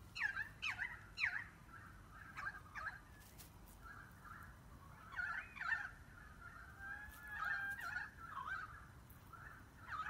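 A flock of Eurasian tree sparrows chirping: many short, overlapping calls and quick up-and-down notes, loudest in clusters near the start and again around five to six seconds in.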